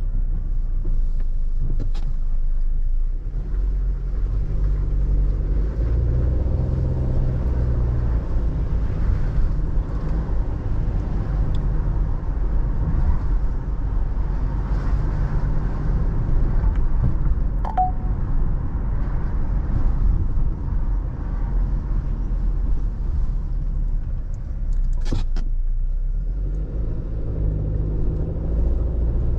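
Motor vehicle driving along: a steady low engine and road rumble whose pitch shifts slowly, with a couple of brief clicks.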